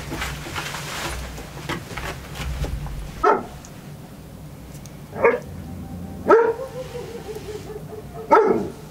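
A dog barking four times, a second or two apart. After the third bark comes a drawn-out, steady whining note lasting about two seconds.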